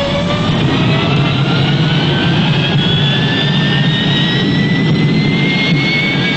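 Military jet aircraft engine running, its turbine whine rising slowly and steadily in pitch over a heavy rumble as the engine spools up.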